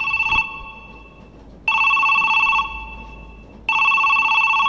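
A bell trilling in three rings about two seconds apart, each ring about a second long, stopping suddenly and ringing on faintly for a moment after.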